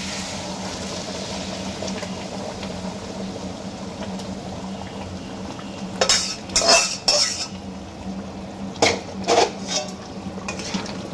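Boiled moong dal being poured into a hot pan of fried spice paste and fish head, with a steady frying sizzle. From about halfway there are several sharp metallic clinks and knocks as a metal utensil strikes the pan while the dal is stirred.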